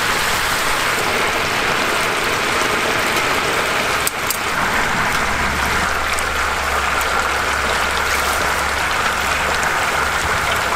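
Battered chicken pieces deep-frying in a cast-iron cauldron of hot oil: a steady, loud sizzle and bubbling, with a few sharp clicks.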